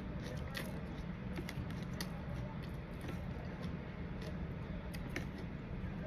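Close-miked eating of som tam (papaya salad with crab and shrimp): irregular small crunches and wet clicks of chewing, over a steady low hum.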